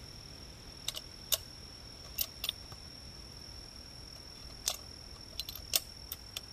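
Sharp mechanical clicks from a bolt-action rifle being handled: a few clicks as the riflescope is adjusted, then a quick run of clicks and clacks from about two-thirds of the way in as the bolt is worked. A steady high-pitched insect drone runs beneath.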